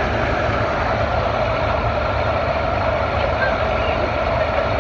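Steady noise of a farm tractor's engine running at the pull track, a continuous low rumble with no rises or breaks.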